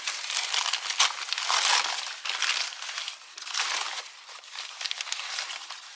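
Crumpled packing paper crinkling and rustling as it is pulled open by hand, thickest in the first two seconds and thinning out toward the end.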